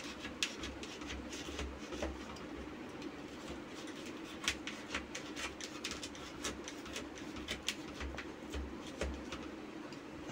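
Knife cutting through a set, crunchy mixture of nuts and dried fruit in a steel plate: irregular crunching clicks and scrapes, some against the metal, over a steady low hum.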